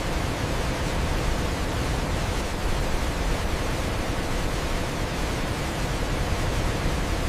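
Waterfall: a steady, unbroken rush of falling water, full across the range and heaviest in the low end.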